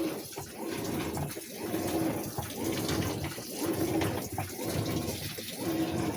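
Water running steadily, with a low hum that swells and fades about once a second.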